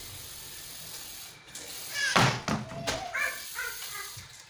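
Aerosol spray-paint can hissing steadily as paint is sprayed through a stencil onto the ceiling, stopping about a second and a half in. A loud short sound follows about two seconds in, then a few shorter high calls.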